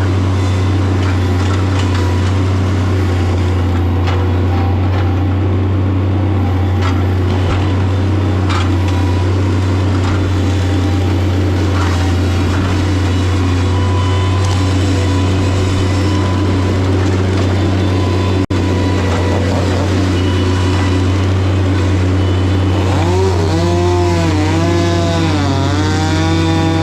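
Two-stroke chainsaw running and cutting a trunk into rounds, over a steady low engine drone. Near the end the saw's pitch rises and falls several times as the throttle is worked.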